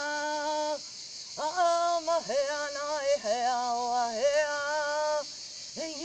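A woman chanting without words in long held notes that slide up and down between pitches, about five phrases with a short break near the end, over a steady high shrill of crickets.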